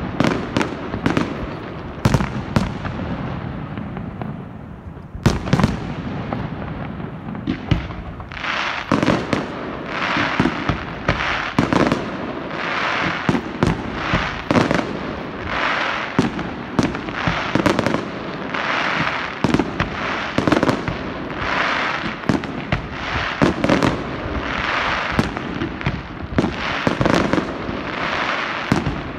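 Fireworks display: aerial shells bursting in quick succession with sharp bangs. From about eight seconds in, the bursts settle into a regular run, each bang followed by a rush of high noise, about one every second and a half.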